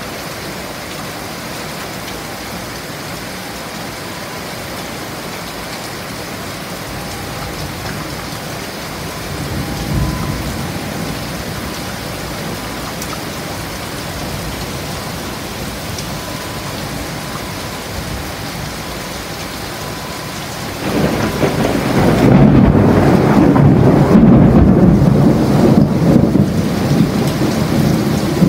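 Heavy rain falling steadily, with a short rumble of thunder about a third of the way in. About three-quarters of the way through, a long, loud roll of thunder begins; it is the loudest sound.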